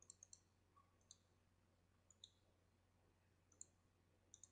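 Near silence with faint, sharp high clicks every second or so, some in quick pairs or threes.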